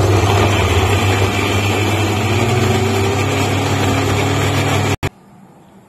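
Philips mixer grinder running steadily with a loud motor hum, grinding onion, dried red chillies and garlic into a paste. It stops abruptly about five seconds in.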